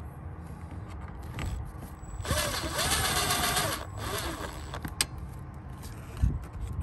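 Cordless impact driver driving a self-drilling roofing screw into sheet metal, one burst of about a second and a half, some two seconds in, its motor pitch rising and then falling. A few small clicks and a low knock follow.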